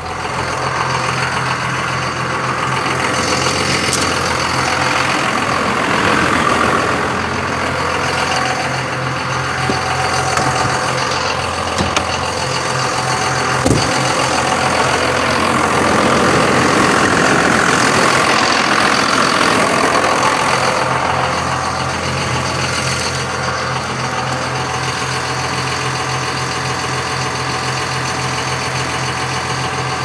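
A motor running steadily with a low, pulsing hum and a rushing noise that swells and eases. There is one sharp click about halfway through.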